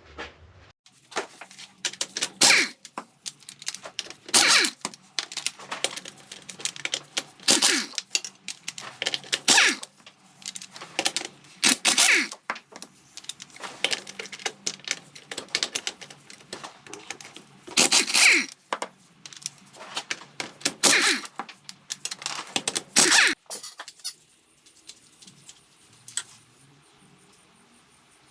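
Metal tools and engine parts clinking, clattering and scraping in quick, irregular strokes, the sound of hand work on a Vespa PX150E engine during teardown; it stops about 24 seconds in.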